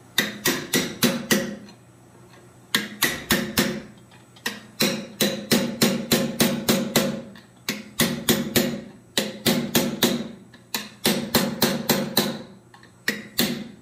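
Hand hammer beating on a chisel driven between the hot steel flippers of a forged sea turtle held in a vise, opening the cut to spread them. The blows come in quick runs of several, about four a second, each with a short metallic ring, and pause briefly between runs.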